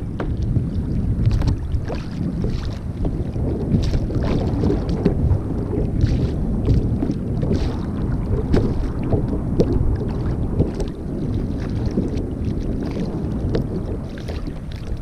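Wind buffeting the microphone on a kayak at sea, a steady low rumble, with water slapping and splashing against the hull in short irregular bursts.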